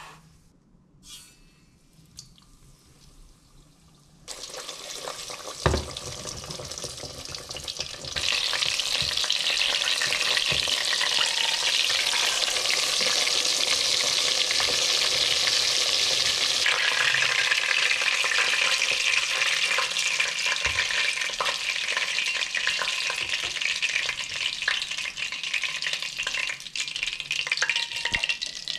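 Breaded chicken schnitzel deep-frying in hot oil in a stainless steel pot, a steady loud sizzle. The oil hisses faintly at first and a single knock sounds; then, about eight seconds in, the full sizzle sets in as the cutlet fries, easing slightly partway through.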